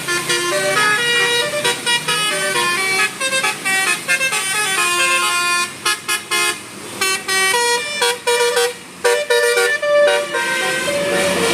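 Telolet basuri musical bus horn playing a fast tune, one clear note after another stepping up and down, with a couple of short breaks.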